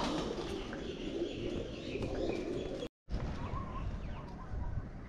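Birds calling, with low cooing and a few faint chirps, over a steady outdoor background; the sound drops out for a moment about three seconds in.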